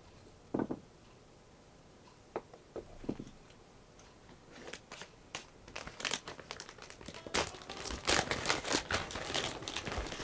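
Cats gnawing and chewing silver vine (matatabi) sticks: a few small knocks at first, then from about five seconds in a thickening run of dry crackling and crunching, loudest near the end.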